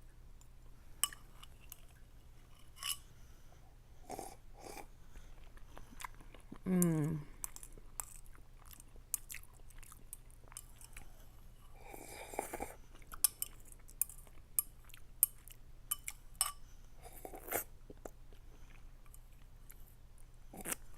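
Close-miked mouth sounds of someone eating ramen noodles: wet chewing clicks and smacks, with a few longer breathy eating sounds. A brief low vocal sound comes about seven seconds in.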